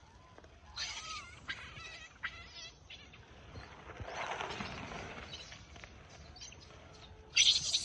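Wild macaques at a feeding, giving a brief rising-and-falling call amid rustling and scuffling. A sudden loud, harsh burst comes near the end.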